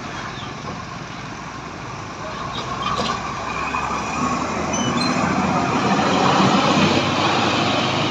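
A large bus approaching and passing close by, its engine and tyre noise growing louder to a peak about six seconds in.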